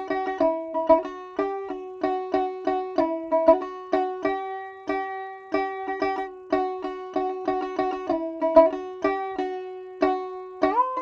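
Instrumental music: a plucked string instrument playing a bright melody of quick, evenly spaced notes, each plucked sharply and fading, stepping between a few pitches in a repeating pattern.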